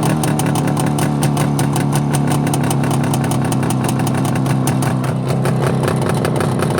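A car engine running steadily at a fairly even speed, with a slight dip in pitch near the end.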